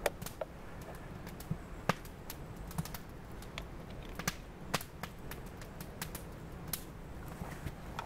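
Scattered, irregular sharp clicks and snaps over a low, steady background noise, the loudest about two seconds in and twice more a little past the middle.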